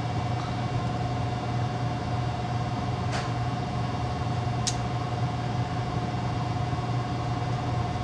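Steady low hum with a faint constant whine in the room, over which a spring-loaded Klein Katapult wire stripper clicks twice, about a second and a half apart, as it strips insulation off a wire.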